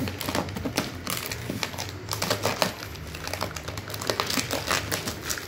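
Plastic stretch wrap crackling and tearing as it is cut and pulled off a cardboard flat-pack cabinet box: a quick, irregular run of sharp crackles and snaps.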